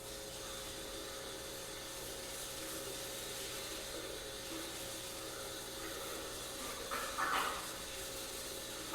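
Aquarium water flowing and bubbling: a steady hiss with a faint steady hum under it, and a brief louder burst about seven seconds in.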